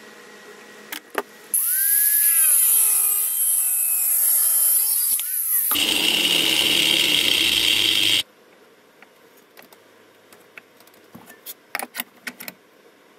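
A handheld grinder working steel tubing clamped in a vise. Its motor whine drops in pitch as it bears into the metal, then turns to a harsher grinding about six seconds in and cuts off suddenly after about eight seconds. Light clicks of handling the metal follow.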